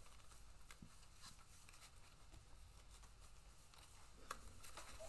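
Faint, scattered soft clicks of sleeved playing cards being mash-shuffled, over quiet room tone.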